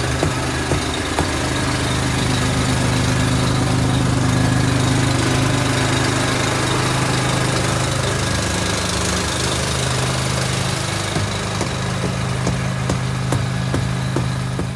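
An engine idling steadily, with scattered light clicks and knocks over it; its pitch wavers briefly about eight seconds in.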